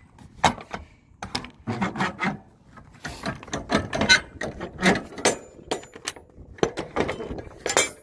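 Irregular series of metal clanks, knocks and scrapes as the rear door hardware of a semi-trailer is worked to open the doors.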